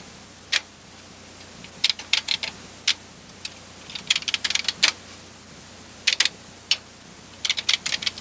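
Keys clacking on a videotape console's keyboard, typed in short bursts of quick keystrokes with brief pauses between the bursts.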